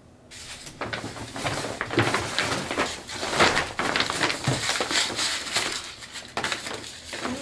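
Paper packaging rustling and crinkling in quick irregular handling noises as wooden furniture legs are pulled out of their wrapping, with scattered light knocks; it starts abruptly just after the beginning.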